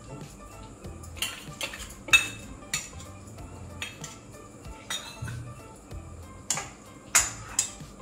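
Stainless-steel ladle clinking and scraping against a steel bowl and a metal kadhai as ghee is spooned out. It makes a string of irregular sharp metallic clinks, loudest about two seconds in and about seven seconds in.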